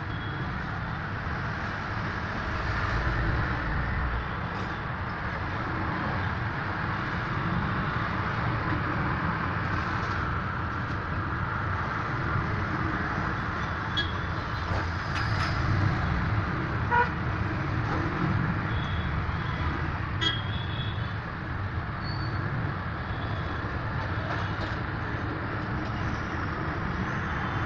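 Steady road traffic noise, with short vehicle horn toots now and then through the second half.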